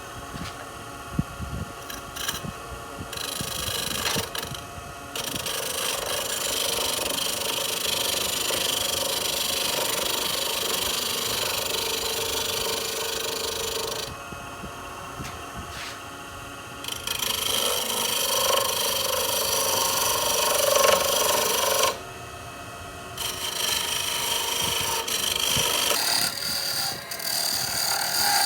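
Wen benchtop variable-speed wood lathe running while a flat chisel scrapes the spinning wood down to a taper. The cutting comes in long spells of several seconds, with short breaks where the lathe runs on its own.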